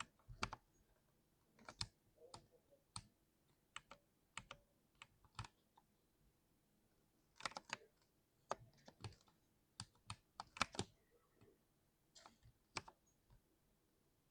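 Keys on a 60% keyboard being pressed in irregular, unhurried keystrokes: single sharp clicks and short quick runs, with a pause of about two seconds near the middle.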